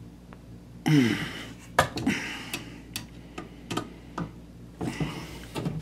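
Screwdriver working the terminal screws of a 50 A range receptacle as they are tightened down on the wires. A short scrape with a falling squeak comes about a second in, then a series of sharp metal clicks roughly two a second.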